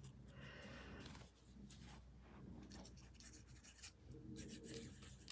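Faint rustling and rubbing of paper as die-cut cardstock pieces are handled and pressed down onto a card, with a few small ticks.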